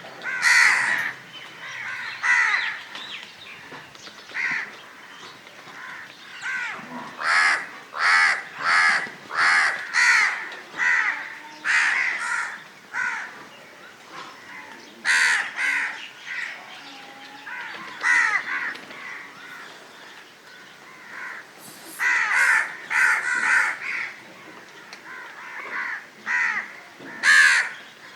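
Crows cawing over and over, short harsh calls coming in runs of several, with brief lulls between the runs.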